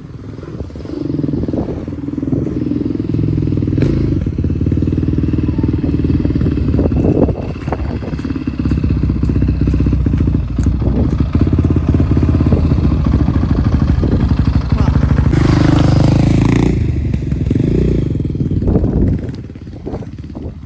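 Honda XR650R's single-cylinder four-stroke engine running as the dirt bike is ridden, rising in loudness about a second in and staying loud with its pitch shifting, with a louder rushing blast about three quarters of the way through before it drops away near the end.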